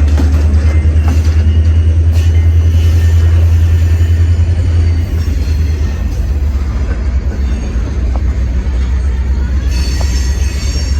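Train passing, with a heavy low rumble that eases slightly about halfway through.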